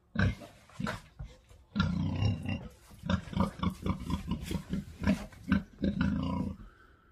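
Pigs grunting: a couple of short grunts, then from about two seconds in a quick run of short, low grunts, about four a second, that dies away near the end.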